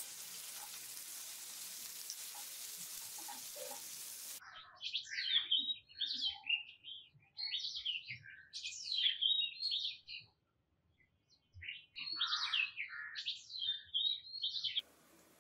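Nuts, coconut and whole spices sizzling gently in oil in a steel pan, cutting off abruptly about four seconds in. A small bird then sings in quick, high chirping phrases, pauses for about a second, and sings again. The sizzle returns faintly near the end.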